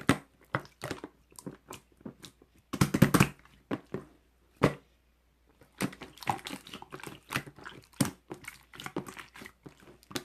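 Irregular crinkling and crunching with sharp crackles, as of something being handled or squeezed close to the microphone, with a denser run about three seconds in.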